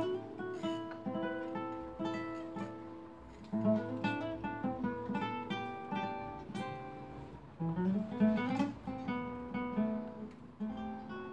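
Solo acoustic guitar played fingerstyle: plucked melody notes over bass notes, with a quick rising run of notes about eight seconds in.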